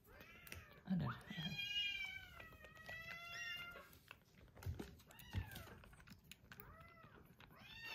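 Several young kittens mewing in high, thin calls, a few overlapping in the first few seconds, then fainter single mews. There are a couple of soft knocks midway.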